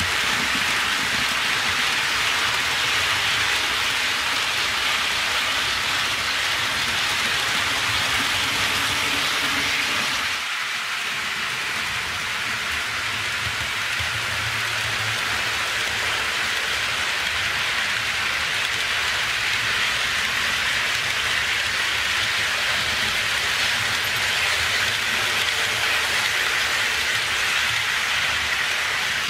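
HO scale model trains running on sectional roadbed track: a steady rolling hiss from the wheels on the rails, with a low motor hum underneath. The low hum drops out briefly about ten seconds in.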